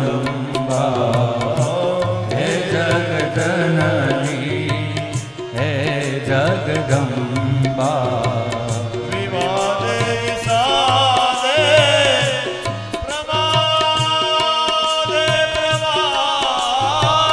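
Devotional bhajan: a man singing, one line calling on 'Jagdamba', over tabla and a keyboard instrument. The tabla plays a steady run of strokes throughout. About ten seconds in, the singing climbs to a higher, wavering line.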